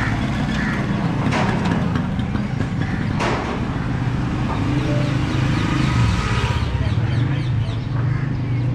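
Street ambience dominated by the steady low rumble of motor-vehicle engines, with two sharp knocks about one and three seconds in.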